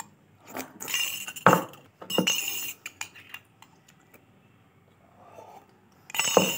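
Steel spoon clinking and scraping against a ceramic mug while someone scoops food from it and eats, in short clusters about a second in, around two seconds in, and again near the end.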